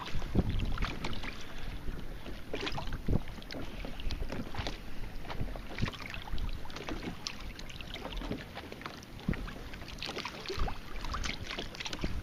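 Small waves lapping and slapping irregularly against a plastic sit-on-top kayak's hull, with a low wind rumble on the microphone.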